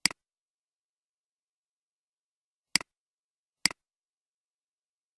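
Three sharp clicks of a computer mouse button, each a press followed a moment later by a softer release: one at the start, then two more close together a little under a second apart, with dead silence between.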